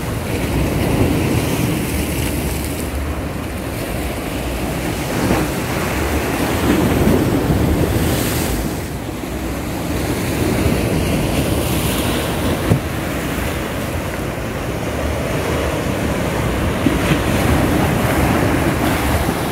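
Sea surf washing and breaking against a rocky shore in slow swells, with wind buffeting the microphone.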